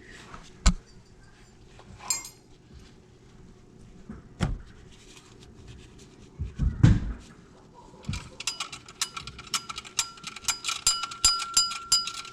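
Metal tools and parts being handled in an engine bay: a few separate knocks and clinks. From about two-thirds of the way in comes a fast run of sharp, ringing metallic clicks.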